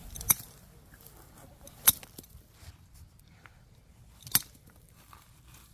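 An adjustable wrench striking a geode set on a brick: three sharp knocks spread over about four seconds, the middle one the loudest.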